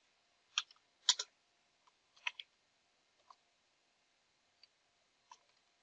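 Computer keyboard keys being tapped: a handful of faint, separate clicks at irregular intervals as a command is typed.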